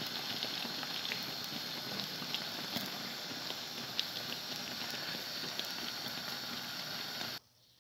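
Lángos dough frying in hot oil in a frying pan: a steady sizzle with scattered small crackles and pops. It cuts off abruptly near the end.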